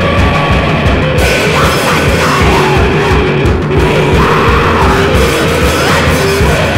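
Recorded noise-rock from a bass-less trio: guitars and drums playing loudly without a break.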